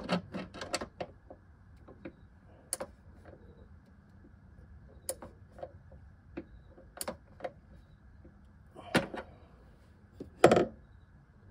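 Scattered metallic clicks and taps of hands and hardware working at a car's hood hinge bolt, a quick cluster at the start and two louder knocks near the end.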